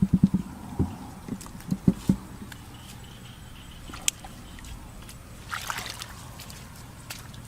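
Shallow water sloshing and splashing: a quick series of low sloshes in the first two seconds, then a brief splash about five and a half seconds in.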